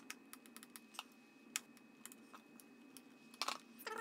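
Faint, sparse small plastic clicks and taps as a hoverboard's wire connector is worked loose from its socket, with a quick cluster of clicks near the end.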